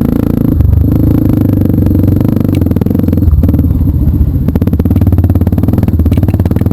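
Off-road trail motorcycle engine running while riding, loud and close with a rapid pulsing beat and rattling, its pitch shifting a little with the throttle.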